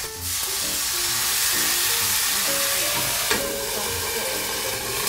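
Sake poured into a hot frying pan around thick fried tofu, the sizzling swelling loudly as it hits the oil. A little past halfway a metal lid is set down on the pan with a short clank, and the sizzle goes on under it as the tofu starts to steam.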